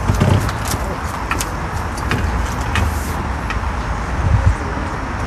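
Steady low outdoor rumble, with faint ticks over the first few seconds and two dull low thumps, one just after the start and one about four seconds in.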